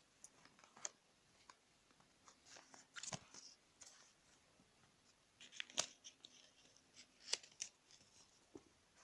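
Faint paper rustling and crinkling in short scattered bursts as a folded paper wallet is handled.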